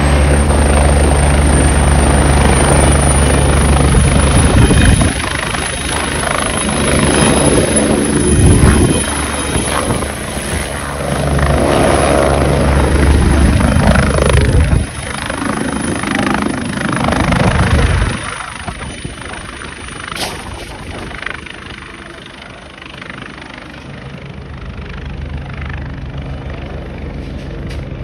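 Helicopter lifting off: a high turbine whine over heavy rotor noise, loud through the lift-off and fading from about 18 seconds in as it flies away.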